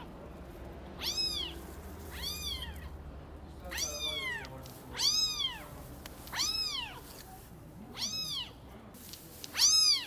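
A cat meowing over and over: seven short, high meows, each rising then falling in pitch, about one every second and a half, the last near the end the loudest.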